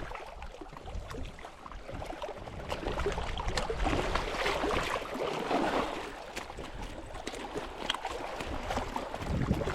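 Water splashing and sloshing as a hooked brook trout is brought into the landing net, louder for a few seconds in the middle.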